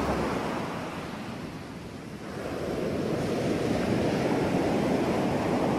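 Ocean surf, a steady wash of breaking waves. It eases off about two seconds in, then grows louder again as the next wave comes in.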